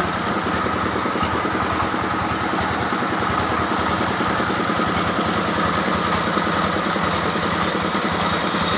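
Engine of a wood-cutting saw running at a steady speed.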